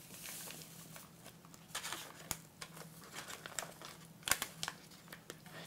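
Faint crinkling of paper pouches of instant pudding mix as the dry powder is shaken out into a bowl of milk: a light hiss at first, then scattered short crackles, the sharpest about four seconds in.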